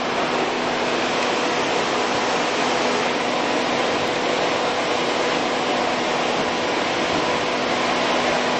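RF-500C gear-head drill-milling machine with a 4 HP three-phase motor, running steadily: an even hiss with a low, constant whine from the motor and gearbox.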